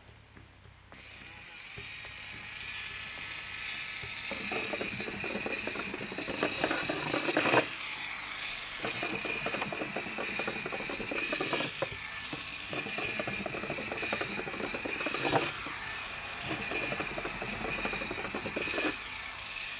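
Small DC gear motor running with a steady whine, from about a second in, as the toy car drives across a wooden bench. From about four seconds in an uneven clatter of the wheels and gears on the wood joins it, with a few louder knocks; the car's axle is loose and slides back and forth.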